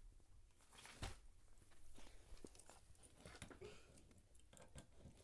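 Near silence with faint rustling and handling noise from a phone being moved about, and a soft click about a second in.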